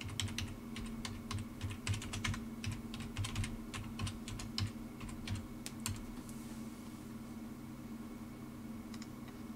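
Typing on a computer keyboard: a run of quick keystrokes that stops about six seconds in, over a steady low hum.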